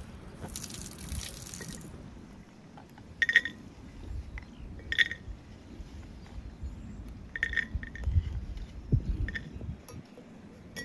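Several short, ringing clinks of metal against a cast-iron teapot as the pot and its metal mesh infuser are handled and set in place, over a low rumble.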